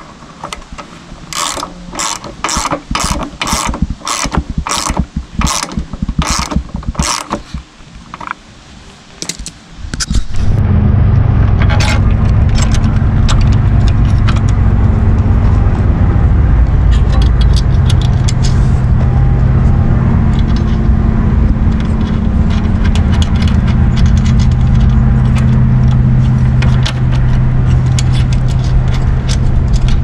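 Socket ratchet clicking about twice a second as it turns a lawnmower wheel bolt, then a loud steady low rumble with a hum takes over for the rest of the time.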